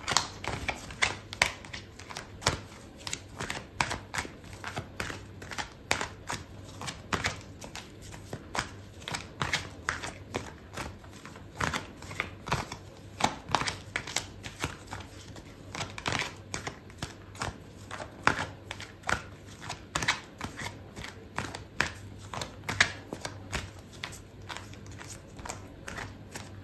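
A deck of oracle cards being shuffled by hand: a long run of short, irregular card flicks and taps, a few a second.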